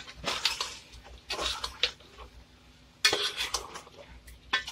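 Metal spoon stirring thick chicken and spinach curry in a metal cooking pot, scraping and clinking against the pot in several short spells with pauses between.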